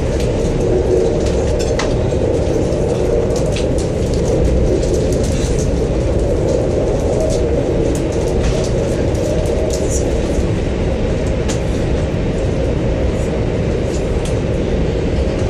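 Interior noise in a high-speed train's passenger cabin while it runs at speed: a steady low rumble, with faint light clicks scattered through it.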